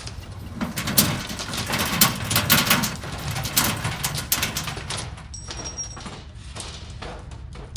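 Earthquake rumble sound effect: a deep rumble under dense clattering and cracking, as of shaking debris, strongest in the first few seconds, then thinning out and dying down.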